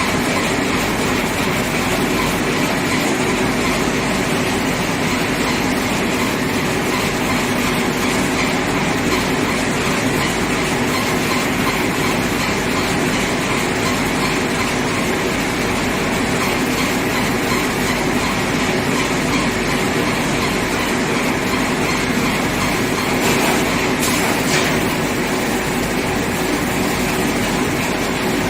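Automatic chicken scalding and plucking machine running: a steady mechanical rattle and hum, with the scalding tank's air blower and motors going, unchanging throughout.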